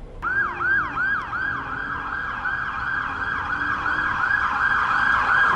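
Electronic siren sounding a fast yelp: a falling sweep about four times a second. It switches on suddenly and grows louder.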